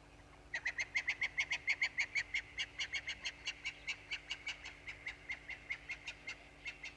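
A bird calling a long run of rapid, evenly pitched notes. They start about half a second in at about six a second, then slow a little and fade gradually.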